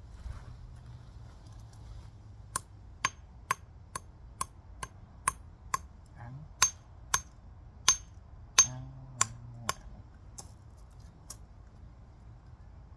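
A plastic remote control being smashed: about fourteen sharp strikes, roughly two a second, each with a brief high ring. The hardest blow comes near the end of the run, followed by two faint knocks.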